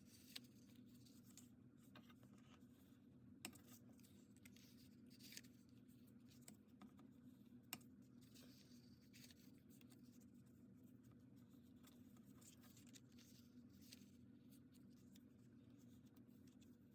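Near silence with a few faint scrapes and ticks of cardstock being folded and creased with a bone folder.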